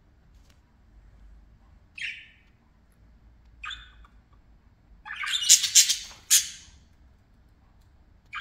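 Pet budgerigars calling: two short chirps, then a louder, harsh squawking stretch lasting about a second and a half in the second half.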